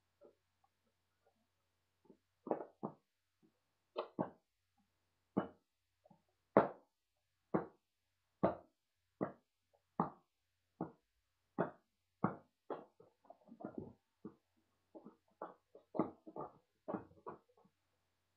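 A series of short, sharp knocks, about one a second, coming faster and less evenly near the end.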